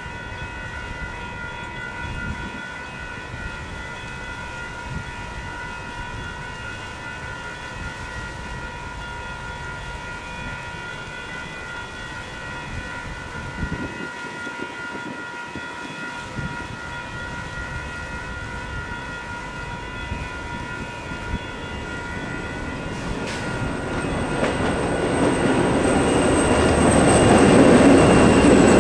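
Electronic railroad-crossing bells ring steadily while a Union Pacific GP40-2 diesel freight locomotive approaches. Its engine and wheel noise grows louder over the last several seconds until it reaches the crossing.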